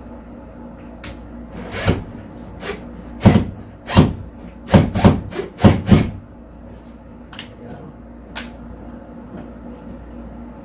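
A quick run of about ten sharp knocks and taps over some four seconds, the loudest in the middle, with lighter taps and rubbing around them: tool work at the wall while fitting the rack's wall anchors.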